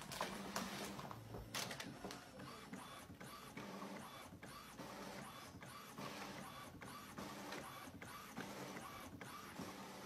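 Home inkjet printer printing a page: the print-head carriage whirs back and forth about twice a second as the sheet is fed through. There are a few sharp knocks in the first second or two.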